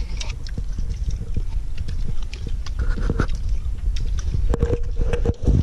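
Close-up chewing and crunching of crisp, tamarind-roasted mantis shrimp: irregular crackles several times a second over a steady low rumble.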